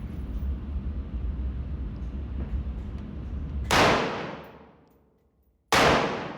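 Two gunshots about two seconds apart, each a sharp crack with a ringing tail, over a steady low rumble that is there before the first shot.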